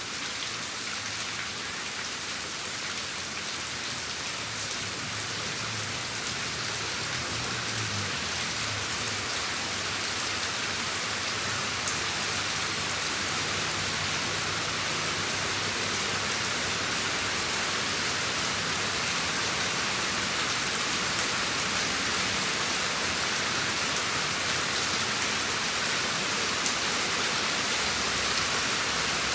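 Steady rain falling and pattering on surfaces, a dense even hiss with scattered individual drop ticks, slowly building a little louder.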